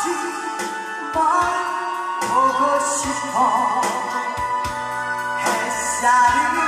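A woman singing a song live over a backing track with a steady drum beat, with vibrato on a held note about three seconds in; her voice is worn from a long run of shows.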